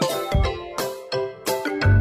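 Background music: a melody of evenly spaced notes, about three a second, with a deep bass coming in near the end.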